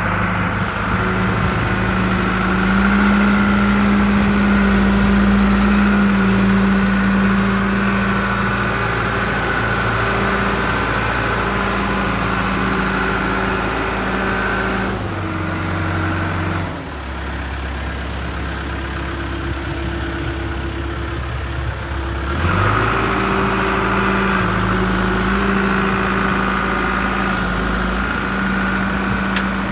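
John Deere backhoe's diesel engine running steadily. About halfway through, its speed drops lower for several seconds, then it climbs back up to the earlier steady running.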